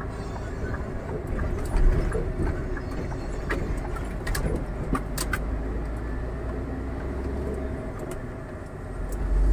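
Scania R440 truck's diesel engine running at road speed, heard from inside the cab as a steady low rumble with road noise. A few light clicks and rattles come from the cab near the middle.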